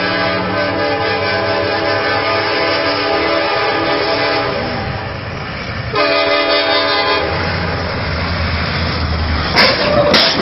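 Diesel freight locomotive's air horn blowing two long warning blasts at a grade crossing. The first lasts about four and a half seconds, the second just over a second. A low rumble follows, then two sharp knocks near the end.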